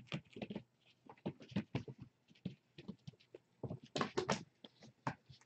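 A quick, irregular run of light taps, patters and scuffs, kittens scampering and pouncing about on a hard floor, with a louder cluster about four seconds in.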